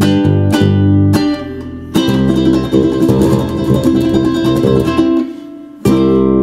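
Electric bass and ukulele playing together: a plucked bass line under strummed ukulele chords. The playing thins out about five seconds in, then both come back in together near the end.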